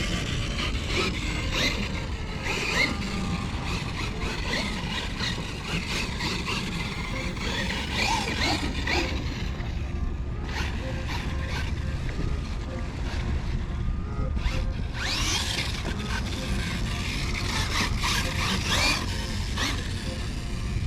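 Losi LMT RC monster truck's brushless electric motor whining, rising and falling in pitch as it is throttled on and off over the sand, over a steady low rush of noise.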